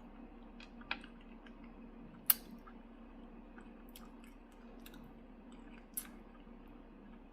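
A person chewing cooked chicken feet close to the microphone, with a few sharp clicks and smacks, the loudest a little after two seconds, over a steady low hum.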